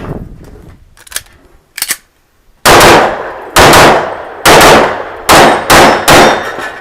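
Six pistol shots fired by a competitor shooting an IPSC stage: the first about two and a half seconds in, the next three about a second apart, the last three quicker, about half a second apart. Each shot is loud with an echoing tail.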